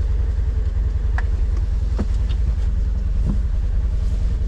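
Vehicle engine and road rumble, steady and low, with a few faint knocks or rattles.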